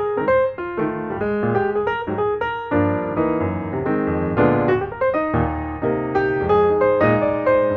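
Background piano music: a steady stream of notes struck in quick succession.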